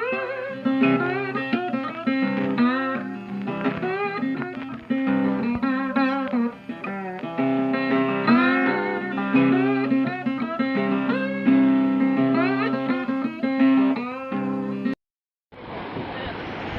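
Background music led by a plucked guitar, with notes that slide in pitch. It cuts off suddenly near the end, and after a short gap a steady rushing noise follows.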